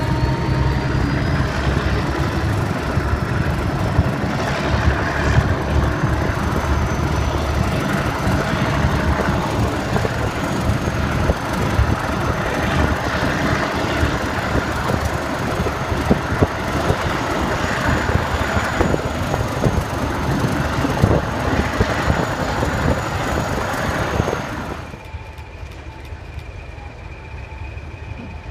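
Double-headed diesel locomotives under power at the front of a passenger train, heard from an open carriage window close behind them: a steady engine din mixed with the clatter of wheels on rail, and a faint high whine that rises in pitch over the first few seconds. About 25 seconds in it cuts off to much quieter lineside background with a faint steady high tone.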